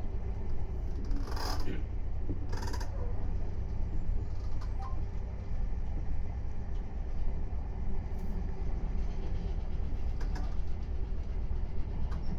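Meitetsu 3500 series electric train running, a steady low rumble heard from inside the car, with two brief sharp noises about one and a half and three seconds in.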